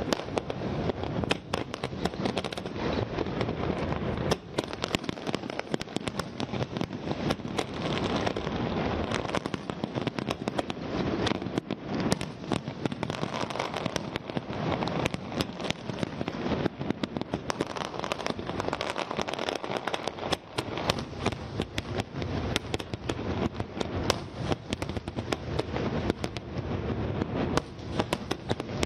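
A large fireworks show: a continuous barrage of aerial shells bursting, the bangs coming thick and fast with crackling in between and no pause.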